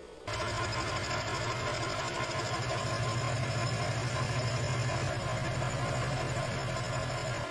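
Milling machine running with a steady hum, its end mill cutting into a steel ball clamped in a vise; it starts a moment in.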